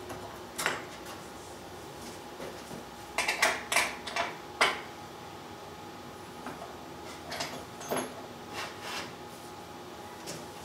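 Small wooden pieces and a tool being handled on a wooden CNC router table: scattered knocks, clatters and short scrapes, busiest a few seconds in, over a faint steady hum.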